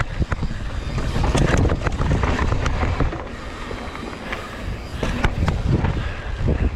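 Mountain bike riding over a rough dirt trail: wind buffeting the microphone with a steady low rumble, tyres crunching over the ground, and frequent sharp clicks and knocks from the bike and stones.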